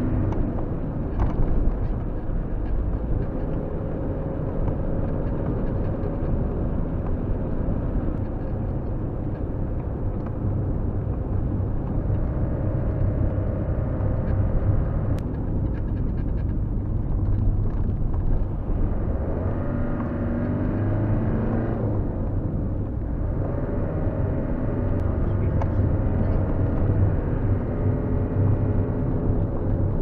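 Steady low road and engine noise from a vehicle driving along a road, heard from inside the cabin, with a faint engine note that drifts up and down now and then.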